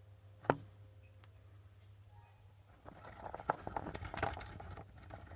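Kitchen handling noises: a sharp knock about half a second in, then a second or so of light clicking and clattering about three seconds in, over a steady low hum.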